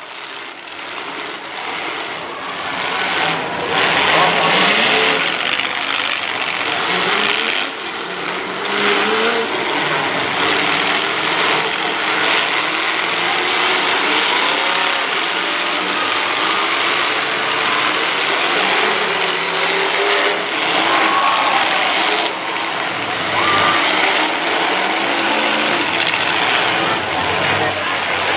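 Several demolition derby cars' engines revving and running hard together, rising and falling in pitch, with a few short bangs of cars crashing into one another.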